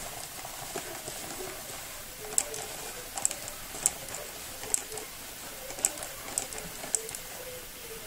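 Light, sharp clicks and taps, about seven at uneven intervals, as a bag of dry ingredient is tipped and shaken into a plastic measuring cup.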